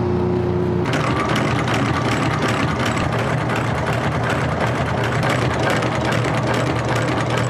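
Shop machine motor humming steadily, then a loud, harsh grinding-sanding noise from about a second in, typical of a cobbler's finishing machine working a shoe.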